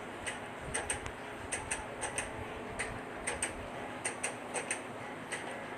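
Irregular light clicking and ticking, about two or three sharp clicks a second, over a steady low hiss.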